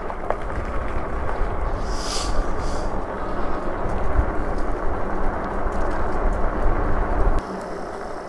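Wind rushing over the camera microphone and the fat tyres of a Super73 e-bike rolling at speed: a steady heavy rumble with noise up to the mid range, and a brief higher hiss about two seconds in. The rumble drops off sharply about seven seconds in, as the bike slows.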